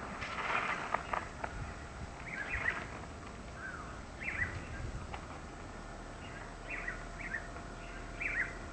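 Small birds chirping in short, quick calls scattered all through, busiest in the first second, over a low rumble of breeze.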